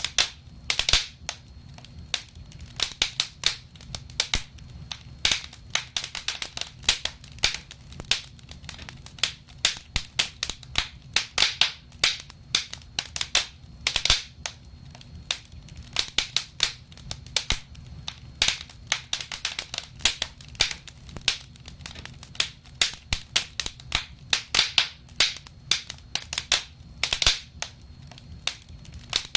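Wood fire crackling: irregular sharp pops and snaps, several a second, some loud, over a low steady rumble of the flames.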